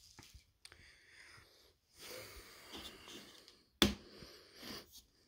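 Scraping and rustling of hands working on a TV's plastic frame and back panel, with one sharp click about four seconds in.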